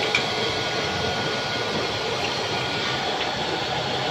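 Homemade used-oil burner stove running with its electric blower on: a steady rush of forced air and flame. A small click sounds just after the start.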